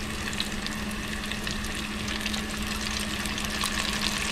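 Battered catfish fillets deep-frying in hot oil in an electric deep fryer: a steady bubbling crackle, under a steady low hum, growing a little louder near the end.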